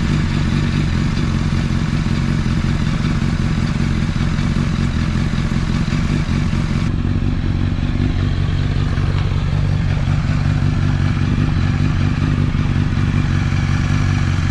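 Honda CBR1000RR's inline-four engine idling steadily just after starting, run after an oil change so the level can be checked again.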